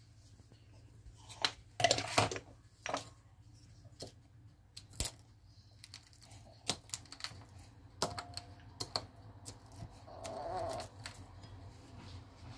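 Wooden pestle crushing dried red chili peppers in a ceramic bowl: irregular knocks and taps of wood on ceramic, with a loud cluster of strikes about two seconds in and a grinding scrape around ten seconds in.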